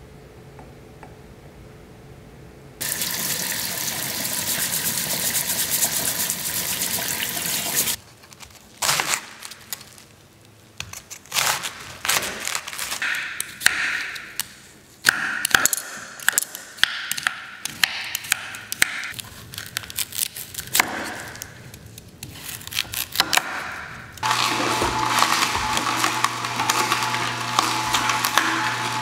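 A steady rush of running water for a few seconds, then irregular scrapes and taps of a vegetable peeler working on ginger on a wooden board. Near the end an Omega masticating juicer starts up, its motor giving a steady low hum as its auger crushes carrots.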